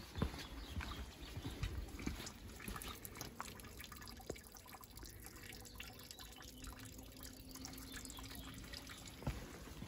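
Faint trickling and dripping of water in a small rocky runnel among ferns, with a couple of footsteps on the gravel path in the first two seconds.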